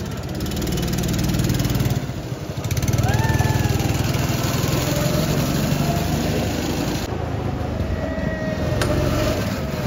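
Go-kart engines running as karts drive along the track. The drone dips briefly about two seconds in, then grows louder as a kart comes close.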